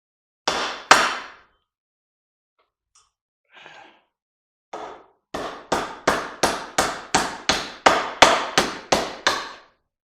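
Hammer blows on a punch, driving a stuck bearing cap out of a cast aluminum electric-motor end bell: two strikes, a couple of lighter knocks, then a fast run of about a dozen strikes, roughly three a second.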